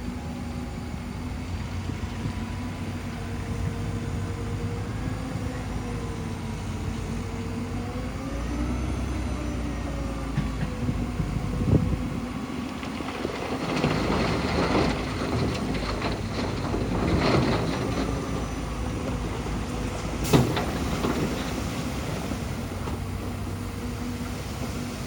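Shantui bulldozer's diesel engine running under changing load, its pitch rising and falling, with a stretch of rattling and clanking from about thirteen seconds in and a sharp knock about twenty seconds in.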